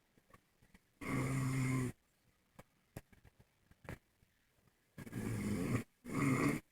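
A man snoring: three loud, rasping snores, one about a second in and two in quick succession near the end.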